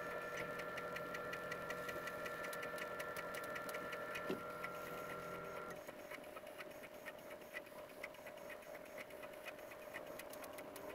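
Prusa XL 3D printer working through its tool offset calibration: a steady motor whine that stops about six seconds in, over a fast, regular light ticking that carries on throughout.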